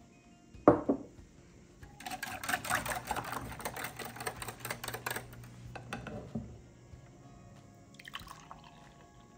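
A glass mug knocks down onto a wooden table. Then frothy eggnog is stirred briskly with a metal utensil in a glass mixing bowl, clinking and sloshing rapidly for about three seconds. Near the end comes a short pour of eggnog into the glass mug.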